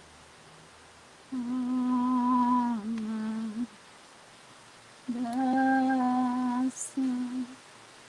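A woman humming long held notes in two phrases, each followed by a short note.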